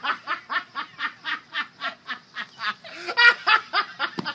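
Canada goose honking in a rapid, even series of about four honks a second, with one louder honk about three seconds in.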